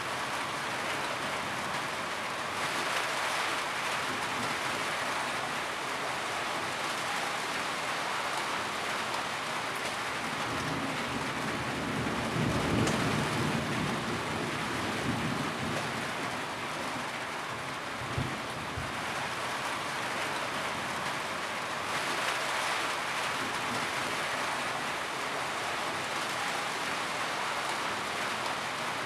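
Steady rain falling, with a low rumble of thunder swelling near the middle.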